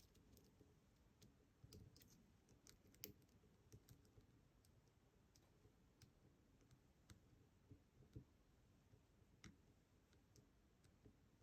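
Faint, irregular small clicks of a lock pick and tension wrench working the pin stack of an ASSA 700 cylinder, lifting a Christmas-tree driver pin toward its shear line from a false set.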